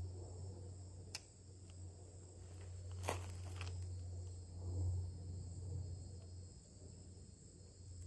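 Steady high-pitched insect chorus over a low steady hum, with a faint sharp click about a second in and a louder click and short rattle about three seconds in.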